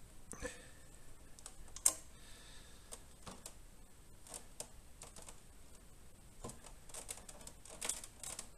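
Irregular light clicks and taps of a monitor arm being handled while its gas-spring tension is adjusted, with a sharper click about two seconds in and a small flurry of clicks near the end.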